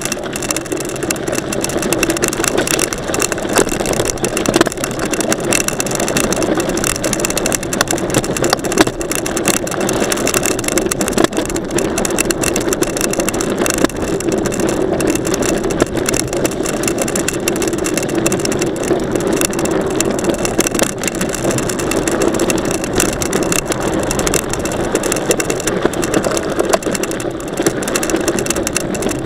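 Steady rushing ride noise of a mountain bike picked up by an action camera, with many small clicks and rattles throughout.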